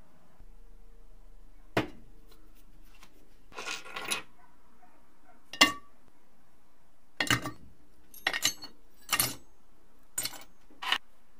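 Small pieces of scrap metal dropped one at a time into a crucible, each landing with a sharp metallic clink, about eight in all.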